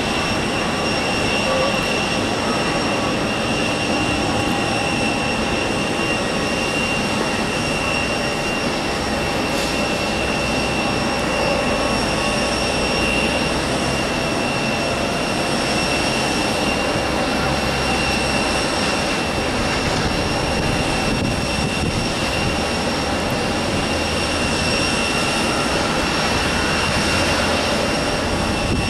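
Boeing 767-300ER's twin turbofan engines running as the airliner rolls out after landing: a steady rush with a high whine over it.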